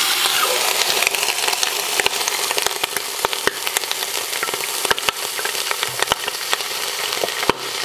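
Whole chicken sizzling in hot oil as it browns in the stainless inner pot of a Cosori electric pressure cooker on its sauté setting. The oil makes a steady hiss with many sharp, irregular pops and crackles.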